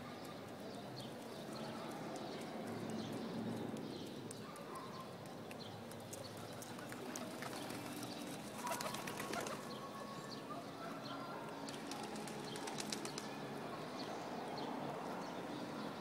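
Small ground doves feeding on grain on a wooden windowsill: clusters of quick sharp taps from pecking and wing flutters, busiest in the middle.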